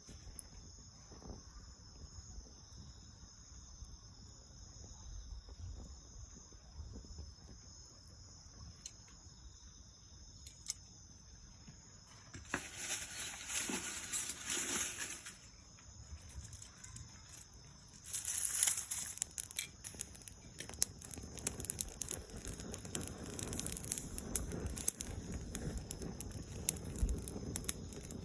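Dry soyogo (Ilex pedunculosa) leaves and twigs burning in an open fire. After a brief loud rustle partway through, there is a run of crackling with many sharp pops and snaps that keeps on to the end. Before that, faint steady insect chirring.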